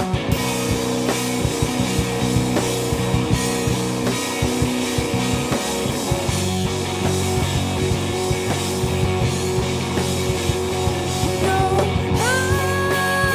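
Live rock band playing an instrumental passage of drum kit and guitar, with steady drum hits. Near the end a held note slides up and sustains.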